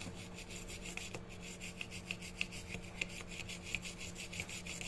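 Quick, regular scrubbing strokes on a circuit board, about five a second, cleaning off solder flux after a spray of PCB cleaner. A faint steady hum runs underneath.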